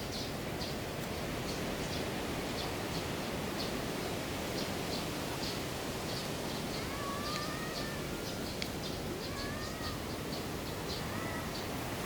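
Outdoor ambience: a steady background hiss with small birds chirping repeatedly. Three short, high calls come in the second half.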